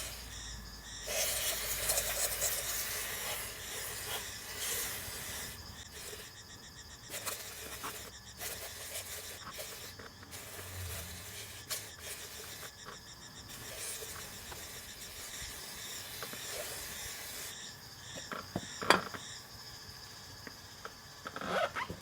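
Aerosol parts cleaner hissing in long and short bursts as it is sprayed onto a drive shaft's outer constant-velocity joint to wash out the old grease, with scattered clicks and one sharp click near the end.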